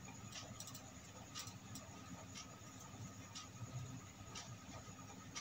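Faint room tone with a steady low hiss and a handful of soft, scattered clicks.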